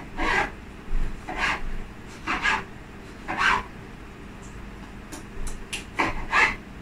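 Serrated knife sawing through a tomato onto a plastic cutting board: separate short rasping strokes, about one a second, with a few light clicks of the blade on the board just before the last strokes.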